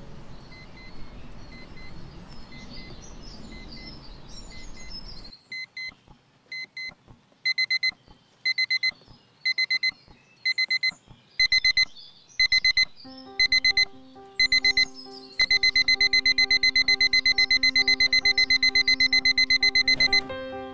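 A bedside alarm clock beeping, short high electronic beeps in groups about once a second that quicken into a continuous fast beeping, stopping just before the end. For the first five seconds or so before it there is only an outdoor hiss with high bird-like chirps, and a low held music chord comes in under the beeping about halfway through.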